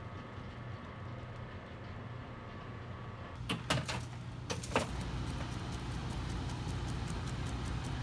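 Kitchen ambience at a crepe stall: a steady low machine hum. A few sharp clicks and knocks come about three and a half to five seconds in, after which the low hum grows fuller.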